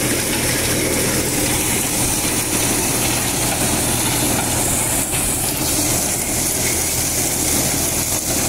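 Tractor-driven corn thresher running steadily: the tractor engine under constant load and the thresher's drum shredding corn cobs and husks, a loud, dense mechanical noise that holds even throughout.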